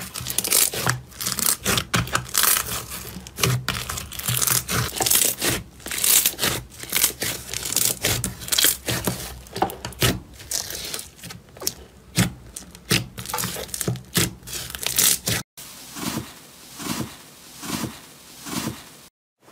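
Slime being handled with crackling and popping sounds. After a cut, a different clip has softer squelches about once or twice a second.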